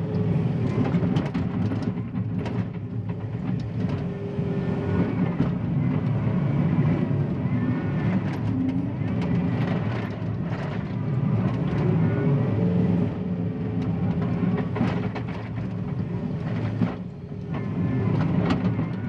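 John Deere 333E compact track loader working, its diesel engine running under load with the revs rising and falling, and frequent sharp knocks and clanks as it digs and pushes soil.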